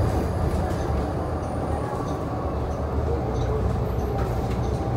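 City bus ride heard from inside the cabin: a steady low rumble of engine and road noise.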